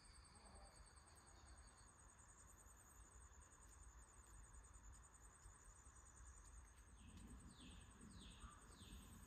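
Faint outdoor insect chorus: high, steady, finely pulsed trilling. From about seven seconds in, a run of short falling chirps about two a second, likely a bird.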